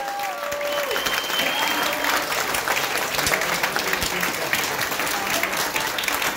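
Audience and panelists applauding steadily, with a few cheers in the first second.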